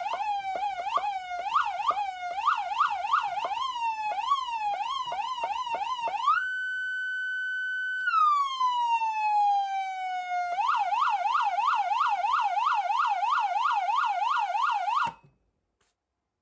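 Code 3 H2Covert remote siren amplifier sounding its electronic siren tones: a fast, uneven warble, then a tone that rises and holds high for about a second and a half before gliding slowly down, then a rapid yelp of about four sweeps a second that cuts off suddenly with a click near the end.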